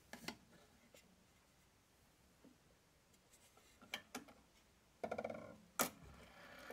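Small clicks and rubbing as the hands of a 1930s Mauthe clock are turned by hand with its glass bezel open, with a short faint metallic ringing about five seconds in and a sharper click near the end.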